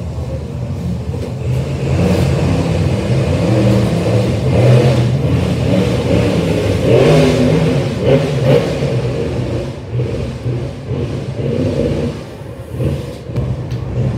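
Monster truck engines revving hard during a side-by-side race, the pitch repeatedly climbing and dropping as the drivers get on and off the throttle.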